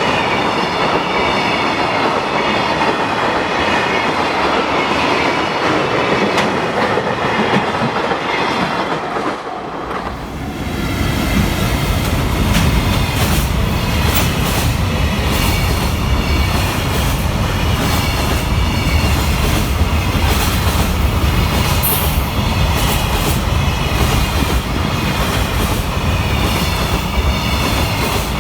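Freight train wagons rolling past with wheels clicking over rail joints. About ten seconds in the sound grows louder and deeper, and the regular clickety-clack continues to the end.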